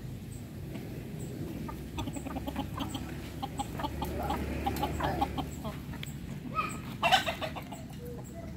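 Chickens clucking in short calls, with one louder, short outburst about seven seconds in.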